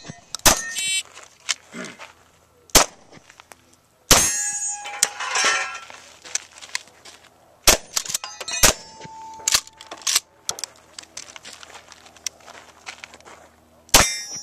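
A string of irregularly spaced gunshots, with steel targets clanging and ringing on with a metallic tone when hit; the loudest ring comes about four seconds in.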